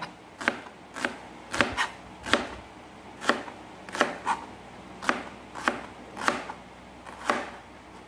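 Kitchen knife slicing an onion on a plastic cutting board: about a dozen sharp chops, irregularly spaced, roughly one to two a second.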